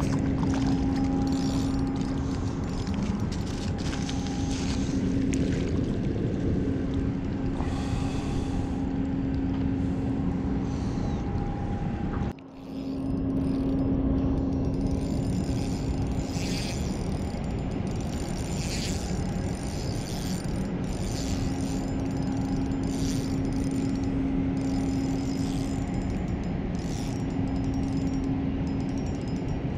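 Steady low engine drone of a towboat on the river, dropping out and returning every few seconds, under wind buffeting the microphone. The sound cuts out briefly about twelve seconds in.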